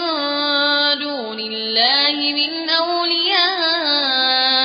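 A young male qari chanting Quran recitation in Arabic: long, drawn-out melodic notes with a drop in pitch and ornamental wavering turns in the voice.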